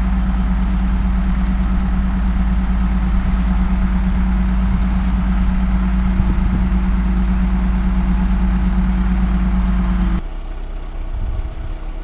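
Heavy farm machinery engine running steadily at constant speed. About ten seconds in the sound cuts off abruptly to a quieter, lower engine sound.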